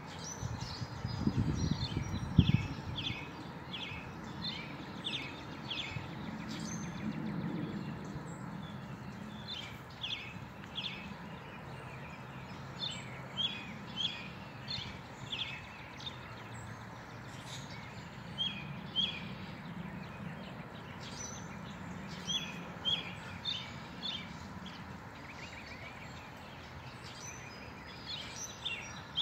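Small birds chirping in short, high, repeated notes throughout, over a steady low background rumble. A burst of low rumbling with a sharp thump comes about two seconds in.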